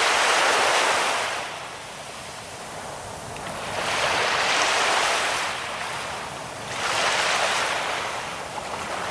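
Ocean waves breaking on a sandy beach, the surf hissing as it swells and fades about every three seconds.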